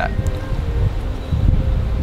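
Wind buffeting the microphone: a gusty low rumble that swells and dips.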